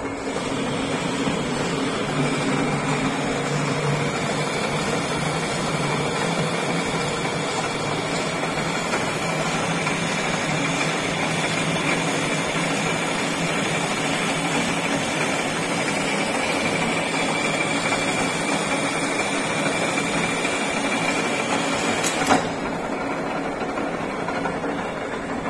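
Old metal lathe running steadily, its spindle and chuck turning a long metal bar, with a steady mechanical whine from the headstock gearing. A single sharp knock comes about 22 seconds in.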